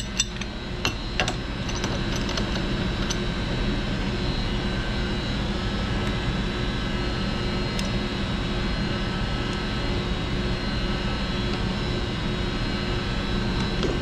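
Steady drone of mechanical-room machinery, like air-handling fans, with a few light metal clicks about a second in as the pipe wrench and fitting are handled.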